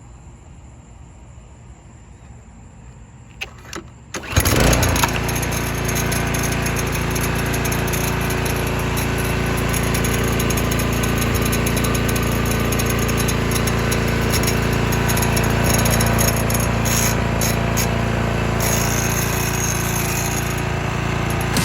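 2021 Toro TimeMaster walk-behind lawn mower engine starting about four seconds in, after two short sharp sounds, then running steadily. The running is laced with the clicking, rattling of the recoil starter's pawls, which rattle while the engine runs.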